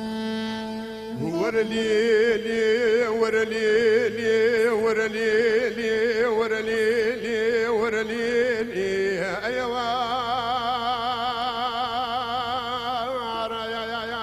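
Middle Eastern (Kurdish) music: a held drone under a long, ornamented melody line. The melody slides up about a second in and holds long notes with strong vibrato, then slides up to a new held note about nine and a half seconds in.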